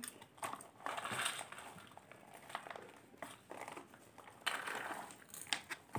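Plastic bags of popcorn crinkling as they are handled and opened, with popcorn pattering onto a steel plate as it is poured out, in two noisy stretches with small clicks between.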